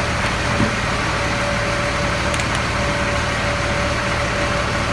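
Fuel truck's engine idling steadily, with a steady whine held over it.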